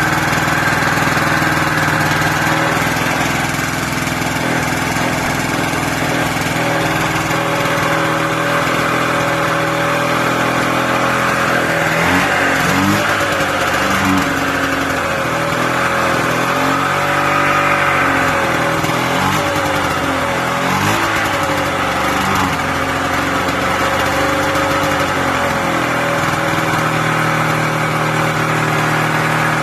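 Ski-Doo 440 two-stroke snowmobile engine in a buggy, running steadily at first, then revved up and down repeatedly from about halfway through.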